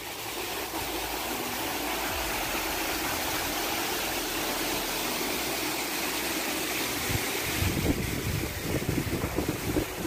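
Stream water rushing over rock ledges in small cascades, a steady rushing hiss. From about seven seconds in, wind buffets the microphone in irregular gusts.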